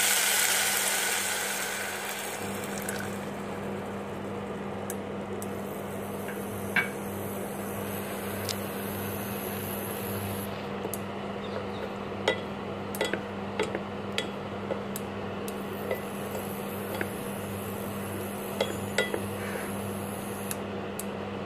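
Milk poured into a hot aluminium pressure cooker sizzles loudly, dying down over the first couple of seconds. It then simmers over a steady low hum, with a stirring spoon clinking and scraping against the pan now and then.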